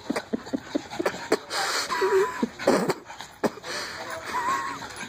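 Two dogs play-fighting, with quick breathy snorts and wheezes several times a second. A brief high whine comes about two seconds in and again near the end.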